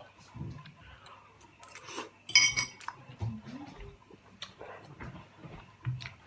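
Tableware being handled: scattered light clinks and knocks, with one louder ringing clink about two and a half seconds in.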